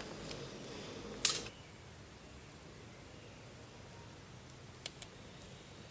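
A single sharp knock about a second in, followed later by a couple of faint clicks.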